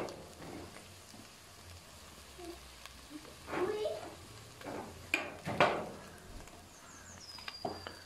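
Minced meat sizzling in a clay pot over a gas burner while it is stirred, with a few spoon scrapes and knocks against the pot and jar as red pepper paste is spooned in.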